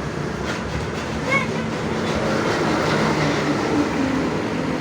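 Large bus running with a steady diesel rumble and road noise, with a brief voice-like call about a second in; no horn melody is heard.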